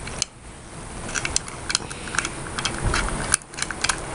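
Light, irregular metallic clicks and ticks as a screwdriver backs the small slotted round-head screw out of the inside of a 1963 Jaguar E-Type distributor. The screw is not tight. There is a dull bump about three seconds in.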